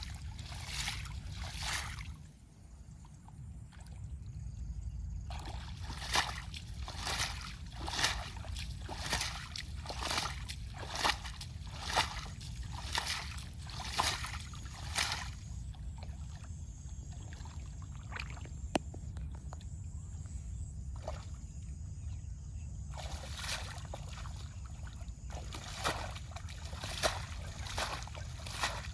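Water sloshing and splashing in a regular rhythm of about one splash a second, with a couple of quieter pauses, over a steady low rumble.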